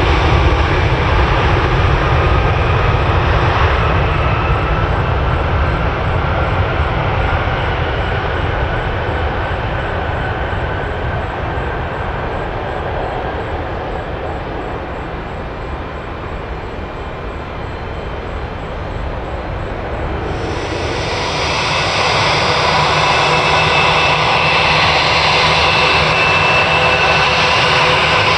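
Airliner engines running, a steady loud rush that slowly fades away over the first half. About two-thirds of the way through the sound changes abruptly to a louder engine noise with a steady high whine over it.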